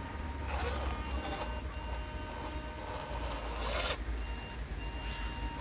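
Radio-controlled scale crawler van creeping over dirt and stones while towing a trailer: a steady high whine from its electric drive, with two stretches of tyres crunching over gravel, about half a second in and near four seconds. A low rumble lies under it all.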